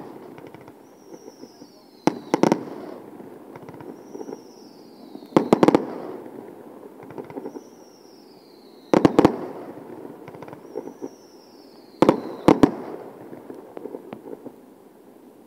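Aerial fireworks shells bursting: four loud booms about three seconds apart, each just after a whistle that falls in pitch, with lighter crackling and a rumbling echo fading after each boom.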